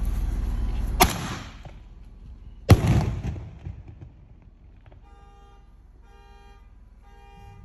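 Aerial firework: a sharp launch crack about a second in, then a loud bang overhead with a rumbling tail. After it a car horn honks in three short bursts about a second apart, like a car alarm going off.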